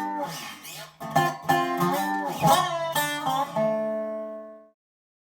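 Acoustic guitar playing a short phrase of picked notes and strums. It ends on a chord that rings and fades out about four and a half seconds in, followed by silence.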